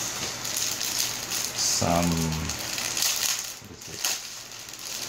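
Packaging rustling and crinkling as PC case accessories are handled and unwrapped. One short word is spoken about two seconds in.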